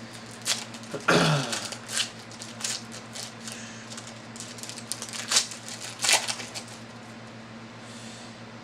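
A trading-card foil pack being torn open and the cards inside handled: scattered crinkles and clicks at an irregular pace, busiest about a second in, over a steady low hum.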